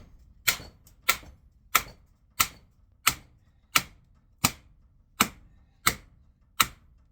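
Hammer striking metal in steady, evenly spaced blows, about three every two seconds, each with a short ringing tail. It is tapping on the motor to drive out a stuck armature shaft.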